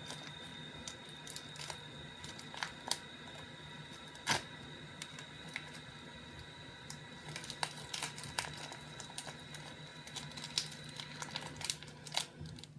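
Scattered light clicks and taps of small plastic items being handled, with a sharper tap about four seconds in, over a steady low hum and a faint high whine.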